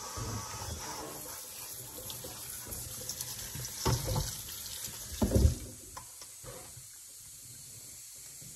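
Water running from a kitchen faucet's pull-down sprayer onto vegetables in a metal colander in a stainless steel sink, with two knocks partway through. The water stops about six seconds in.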